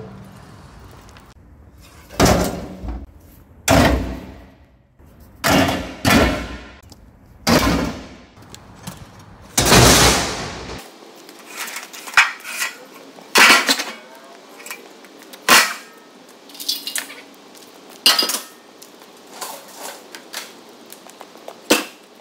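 Sheet-metal machine guards clanging into a steel skip bin as they are thrown in one after another: a series of separate metallic crashes a second or two apart, some ringing briefly.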